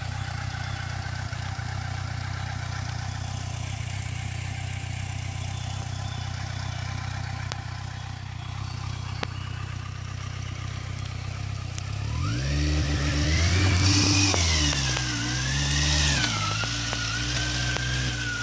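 Kawasaki Versys 1000's inline-four engine running steadily at low revs, then about twelve seconds in revving up and swinging up and down in pitch with the throttle as the bike pushes through deep mud.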